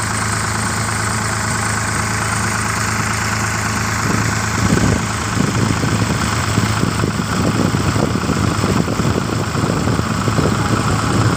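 Passenger ferry boat's engine running steadily with a constant low hum. From about four seconds in, gusts of wind buffet the microphone in irregular low rumbles over it.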